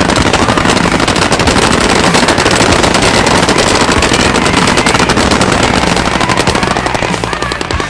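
Machine guns firing fully automatic on a firing line, several at once, so the bursts run together into nearly unbroken rapid gunfire that eases slightly near the end.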